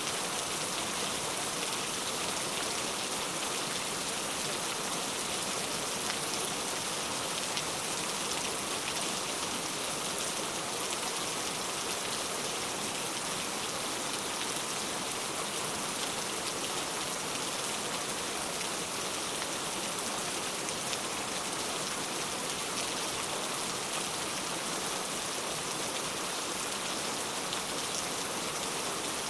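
Steady rain falling, an even hiss of many drops with fine patter of drops hitting a surface.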